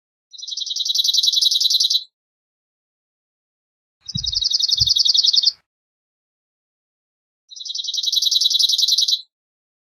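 Cirl bunting singing: three dry, rattling trills of rapidly repeated notes on one pitch, each lasting under two seconds, with a pause of a couple of seconds between them. Two low thumps fall during the second trill.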